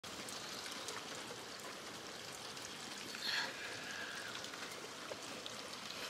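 Steady rain falling, a constant hiss with many small drip ticks. A brief higher-pitched sound stands out about three seconds in.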